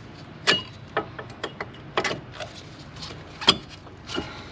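Metal brake pad and its spring clips clicking and clinking against the caliper bracket as the pad is worked into place: about half a dozen irregular sharp knocks, some with a short metallic ring.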